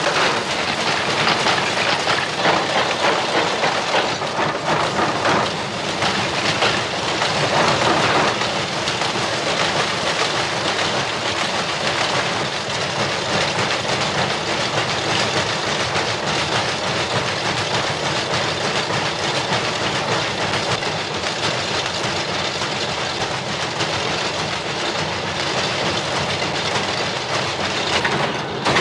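Many textile looms running together in a weaving mill: a dense, steady mechanical din with a low hum underneath.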